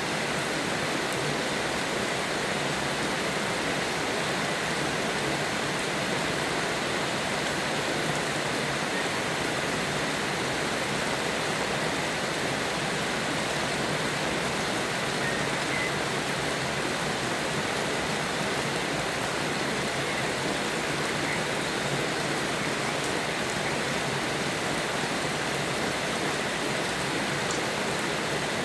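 Steady rain falling, an even unbroken hiss with no thunder.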